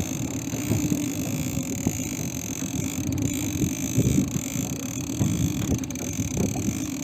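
Small fishing boat's engine running steadily, a constant hum under a rough wash of water and wind noise.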